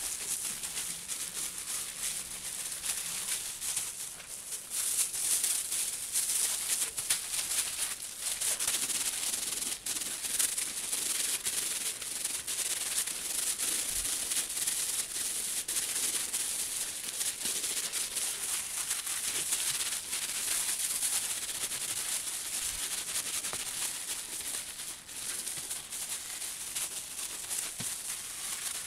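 Plastic-gloved hands rubbing and kneading a wet, soapy Karachay-wool felt slipper against bubble wrap as it is fulled. The sound is a continuous hissing rub with many small crackles.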